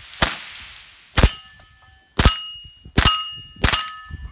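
.22 rimfire rifle fired five times in a steady string about a second apart, each shot followed by the ring of a struck steel plate.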